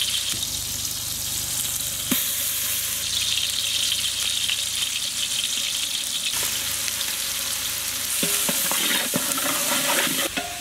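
Onions, tomatoes, green chilies and bay leaves sizzling steadily in oil in a large metal pot, with ginger-garlic paste added. Toward the end a spoon stirs through the mix, knocking and scraping against the pot a few times.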